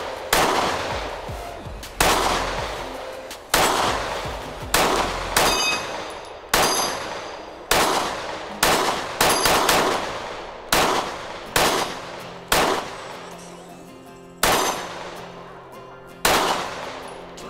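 Springfield Armory XD-M Elite 3.8" semi-automatic pistol firing about fifteen shots at a steady pace of roughly one a second, each shot echoing off the range. Some hits ring the steel targets briefly.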